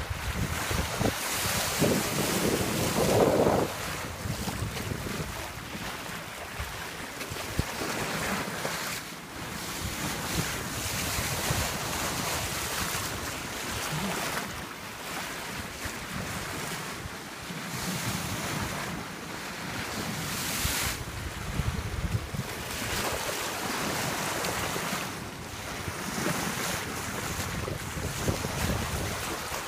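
Water rushing and splashing along the hull of a sailing yacht under way, swelling and easing in uneven surges, with wind buffeting the microphone.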